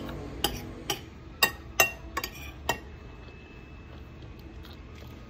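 Cutlery clinking against a plate: about seven sharp clinks in the first three seconds, then quieter.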